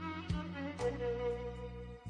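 Instrumental background music: a melody of held notes over a steady low drone.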